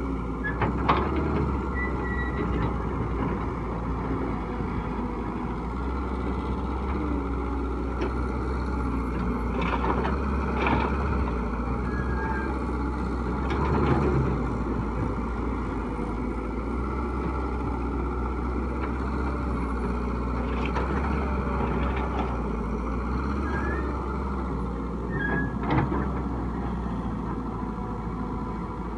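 Excavator's diesel engine running steadily, with occasional sharp knocks and clatters.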